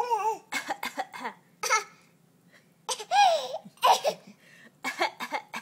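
A baby laughing in a string of short bursts and squeals, with a high wavering note at the start.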